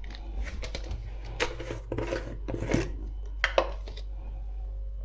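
Several clinks and scrapes of a utensil against a stainless steel frying pan, a handful of separate knocks spread over a few seconds.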